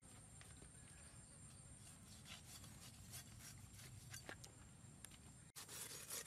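A large knife slicing and scraping through raw beef ribs, making faint scrapes and small ticks that grow louder after about five and a half seconds.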